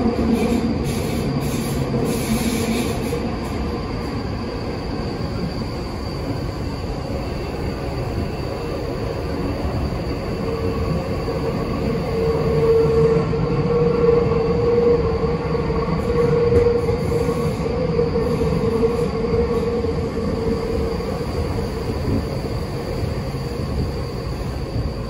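Tokyu 5050 series train running through a subway tunnel, heard from inside the car: steady rumble of wheels and tunnel noise. A steady whine comes in about ten seconds in, is loudest a few seconds later, and fades out near the end.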